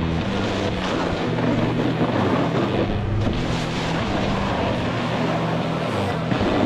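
Snowboard sliding and scraping over packed snow with wind rushing on the microphone, over a background electronic music track with steady low notes that change in steps.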